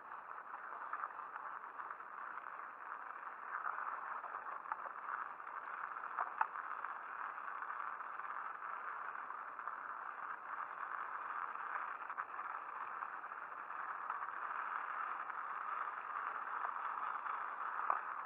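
Mountain bike riding over snow and slush: a steady rushing of tyre and wind noise with rattling from the bike, broken by a few sharp knocks as it jolts over bumps.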